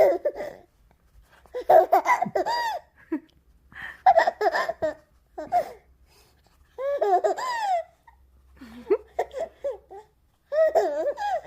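A baby laughing in about seven separate bursts with short pauses between them. Some bursts are high, squealing giggles that rise and fall in pitch.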